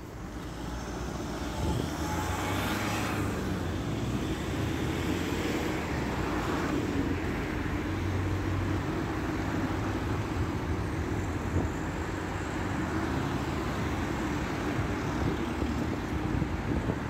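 Urban road traffic: vehicles running past in a steady rumble, growing louder over the first couple of seconds, with a brief brighter hiss of passing tyres about two to three seconds in.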